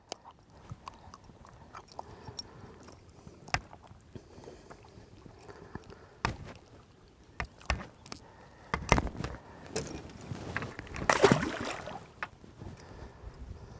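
Scattered knocks and clatter of gear handled in a small fishing boat, with a louder rushing, rustling burst lasting about a second, some eleven seconds in.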